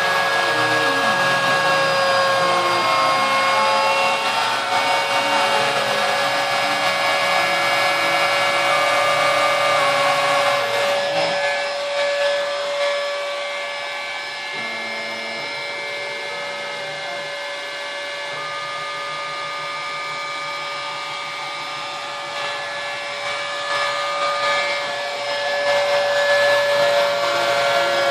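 A wood router spins with a steady whine while the stepper motors of a homebuilt drawer-slide CNC machine drive it through a v-carve in pine. Under the whine, short motor tones jump from pitch to pitch as the axes move. The sound is fainter for a stretch in the middle.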